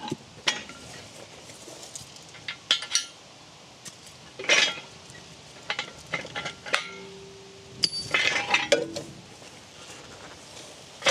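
Steel quick hitch being handled: scattered metal clinks and clanks, a few sharp knocks with a short metallic ring, spread irregularly through the stretch.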